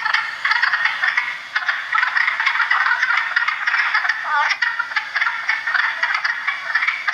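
Wood frog chorus: a dense, unbroken mass of short overlapping calls that sounds like a duck.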